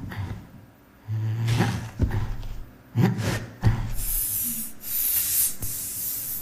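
Played-back sound effects: a few sudden low thuds with a rumbling hum, then a loud, steady hiss like spray or a snake from about four seconds in.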